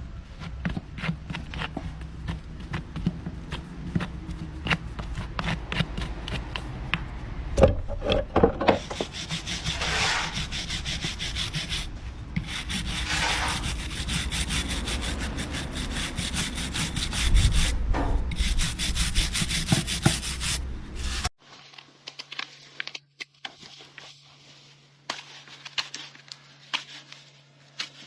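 A farrier's rasp filing a draft horse's hoof in fast, repeated scraping strokes, with a few heavier knocks. About 21 seconds in the rasping cuts off suddenly, leaving a faint low hum and scattered light clicks.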